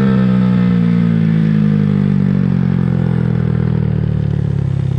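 Honda Grom motorcycle's single-cylinder engine running under way, its revs falling slowly and steadily as the bike slows.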